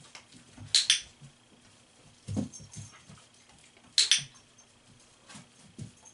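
Dog-training clicker clicking twice, about three seconds apart, each a sharp double click; the second click marks the dog's paw landing on the target disc. Soft thumps and the dog's footsteps on the mat in between.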